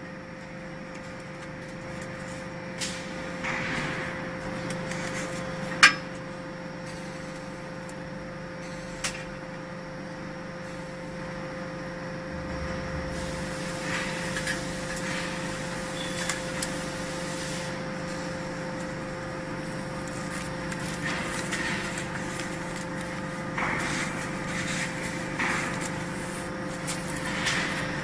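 Hydraulic power unit of an ENERPAT VB30S vertical baler running with a steady hum while the platen presses the bale, with a few sharp clicks and knocks, the loudest about six seconds in.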